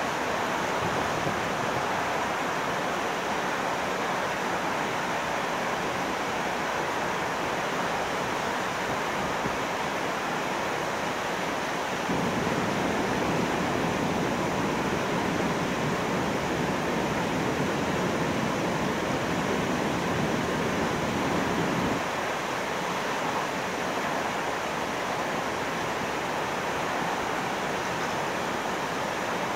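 Water pouring through river sluice gates: a steady, even rush that grows a little louder and fuller for about ten seconds in the middle.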